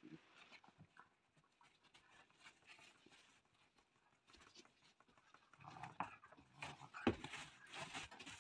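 Puppies playing with plush toys: soft panting and scuffling, with louder irregular play noises over the last few seconds as two of them tug a toy, and one sharp knock.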